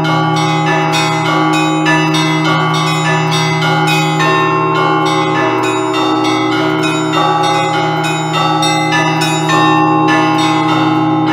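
Russian Orthodox festive bell ringing (trezvon), improvised by one bell ringer on a set of church bells. Small bells strike in quick, dense patterns over the sustained ring of a lower bell.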